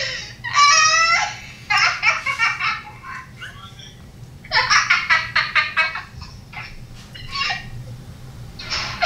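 A young woman laughing hard in several fits of high-pitched, pulsing laughter with short pauses between them, heard over a video-chat call.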